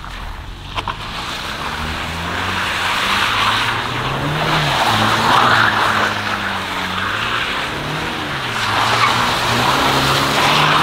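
BMW 320i (F30) turbocharged four-cylinder revving up and down as the car spins a donut on wet asphalt. Its rear wheels hiss as they slip and throw up water. The engine note climbs and falls several times.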